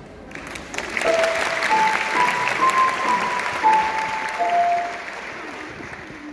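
Audience applauding, swelling about a second in and fading away after about five seconds, with a few held musical notes sounding over the clapping.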